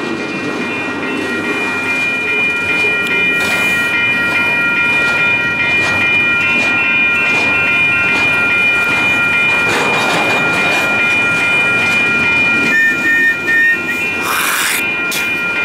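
Double-stack container freight cars rolling past with their brake shoes squealing on the wheels: a steady, many-toned high squeal over the rumble of the wheels, from the train braking to a stop.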